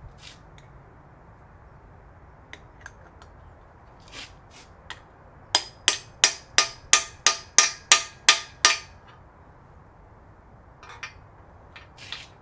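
Hammer striking a 7/8-inch socket held against a steel core (freeze) plug, driving it into the back of a small-block Chevy 350 engine block. About five seconds in come about ten sharp blows, roughly three a second, with lighter taps and clicks of the socket being set before and after.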